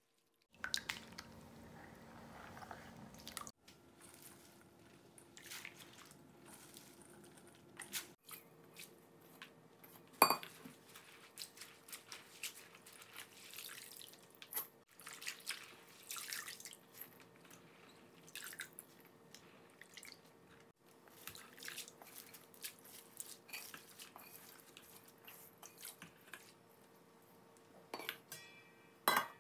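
Water splashing and dripping as mung bean sprouts are swished and lifted out of a basin of rinse water, loosening their hulls. Sharp knocks come about ten seconds in and again near the end.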